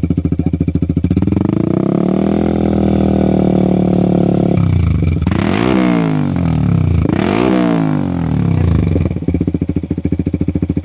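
Yamaha R15 V3's 155 cc single-cylinder engine through an aftermarket exhaust, idling with an even pulse, then revved up and held at mid revs for a few seconds, blipped sharply twice toward high revs, and settling back to idle. The exhaust is soft at idle and gets noisier at mid to high revs.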